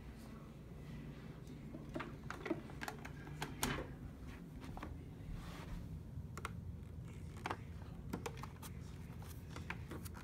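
Scattered light clicks and taps over a low steady hum, grouped a couple of seconds in and again in the second half.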